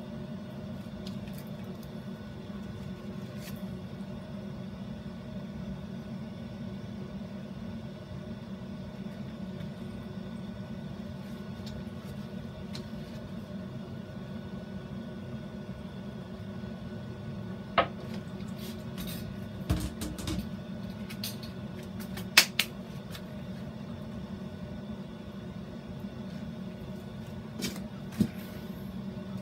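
Steady low background hum, with a few sharp knocks and clicks in the second half from objects handled on the work table.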